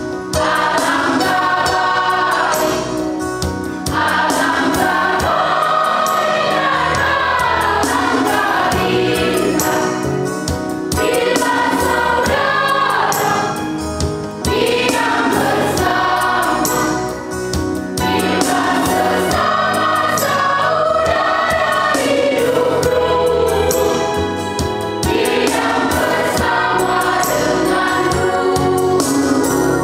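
Church choir singing a post-communion hymn in phrases a few seconds long, with short breaks for breath between them.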